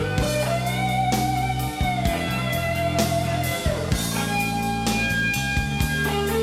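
Live band playing an instrumental passage without vocals: a lead instrument holds long notes over bass and a drum kit keeping a steady beat. It is a 1989 concert recorded off an FM broadcast onto cassette tape.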